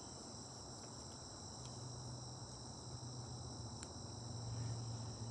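Steady high-pitched insect chorus, several even tones running together without a break. A low hum joins underneath after about a second and a half.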